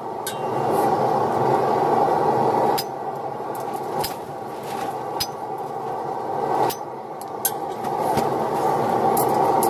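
A steel hammer striking red-hot spring steel on an anvil: a handful of sharp single blows spaced irregularly over a second or so apart, over a steady rushing noise.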